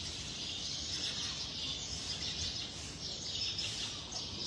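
Steady high-pitched chorus of chirping insects and birds, an even continuous hiss.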